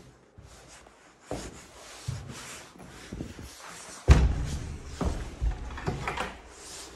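Footsteps and shuffling through an empty hallway, with one loud thump about four seconds in as a wooden door is pushed open.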